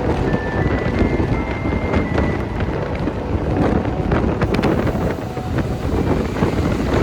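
Passenger train running on the rails: a steady heavy rumble of wheels and carriage, with a thin high squeal in the first two seconds and a cluster of sharp clicks about four seconds in.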